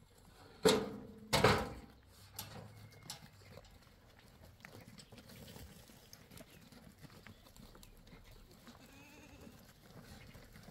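Goats bleating: two loud bleats close together about a second in, then quieter rustling and small knocks from the pen.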